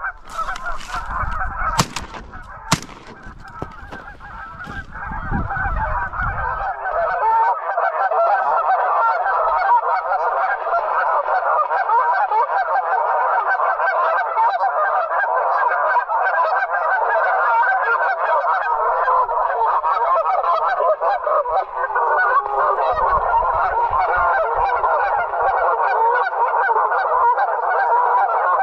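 Dense, unbroken chorus of geese honking, loud and steady from about four seconds in. A few sharp knocks sound in the first three seconds.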